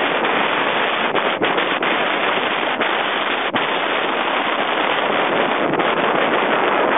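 Steady, loud wind noise buffeting the microphone of a camera on a recumbent tandem bicycle coasting fast downhill.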